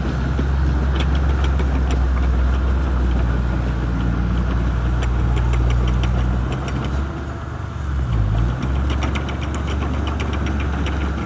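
Shantui bulldozer's diesel engine running with a steady low drone that dips briefly about seven to eight seconds in, under a rapid clicking clatter.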